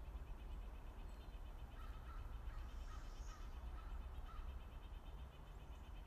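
Faint backyard ambience. A low rumble runs under a fast, even high trill of about eight pulses a second throughout, and a few lower bird notes sound in the middle.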